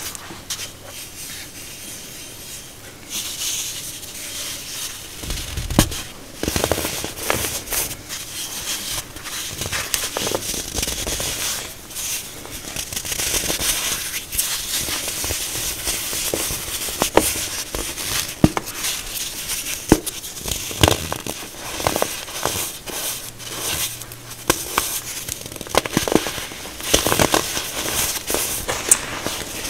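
Packed baking soda mixed with glitter squeezed and crushed by hand: a soft, crunchy crumbling with many irregular sharp crackles as the clumps break apart.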